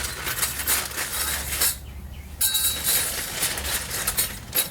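Thin steel brake pad clips clinking and clicking as they are handled and fitted into a caliper bracket: a run of sharp little metallic clicks, with a short pause about two seconds in.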